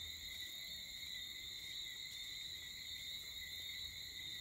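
Steady, high-pitched chorus of evening insects trilling at a few pitches without a break.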